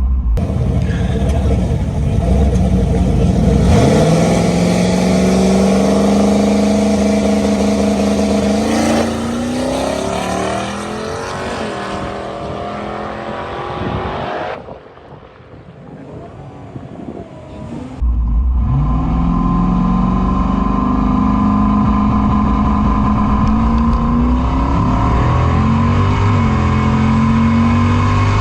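Turbocharged 4.8 LS V8 in a Fox-body Mustang launching hard about four seconds in and pulling down the drag strip, its pitch climbing through the gears. The sound drops away about halfway through, then the engine pulls hard again and turns choppy near the end, which fits the engine hitting boost cut from too much boost.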